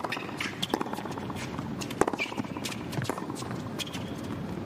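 Tennis ball hit back and forth in a rally: sharp pops of racket strings on the ball, the loudest at the start and about two seconds in, with fainter bounces and brief shoe squeaks on the hard court between.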